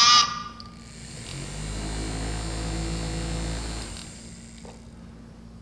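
Small motor of a toy M&M's candy dispenser hums steadily for about two and a half seconds, starting about a second in.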